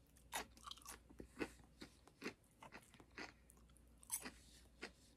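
Faint chewing of a forkful of yellow beans: irregular soft crunches and mouth clicks a few times a second, with another bite taken about four seconds in.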